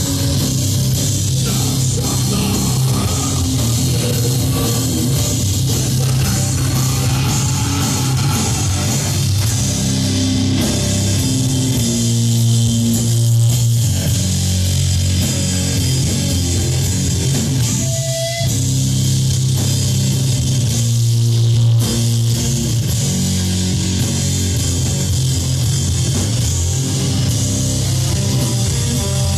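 A doom metal band playing live: distorted electric guitar and bass guitar hold long, loud low notes over drum kit and a steady wash of cymbals.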